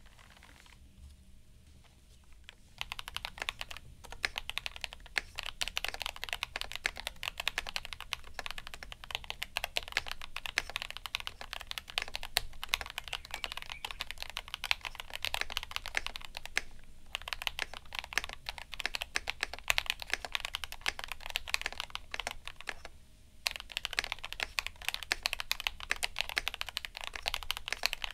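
Fast typing on a Royal Kludge RKG68 mechanical keyboard with linear KTT Red Wine switches lubed with Super Lube and Aifei doubleshot ABS keycaps: a dense stream of keystrokes. The typing starts about three seconds in and stops briefly about five seconds before the end.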